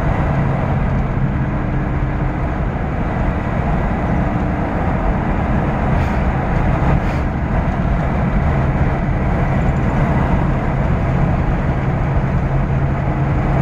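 Inside a moving car at road speed: steady tyre and road noise with a low, even engine drone.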